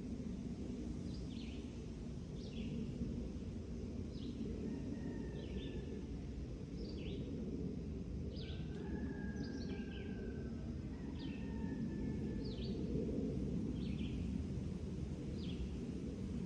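Songbirds chirping: short, quick downward chirps about once a second, with a few faint held whistles, over a steady low rumble of background noise.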